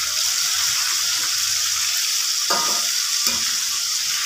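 Marinated torpedo scad pieces sizzling steadily in hot oil in a metal kadai, with a couple of brief scrapes of a slotted spoon against the pan about two and a half and three seconds in as the pieces are turned.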